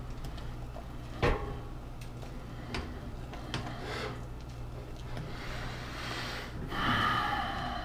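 Food being stirred and folded in a pot with a silicone spatula: soft scraping with a few light knocks against the pot, over a steady low hum.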